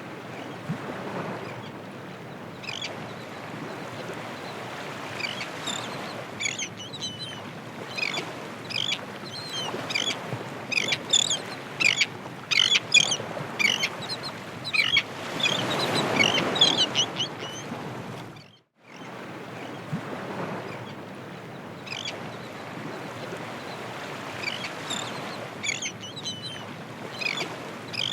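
Ocean surf washing steadily, with a swell building near the middle, while many birds call sharply over it. The sound cuts out for a moment about two-thirds of the way in, then the surf and bird calls resume.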